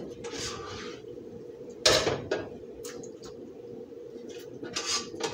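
A serving spoon scrapes and knocks against a cooking pot as stew is scooped out into a bowl, with a few sharp clinks, the loudest about two seconds in. A faint steady hum runs underneath.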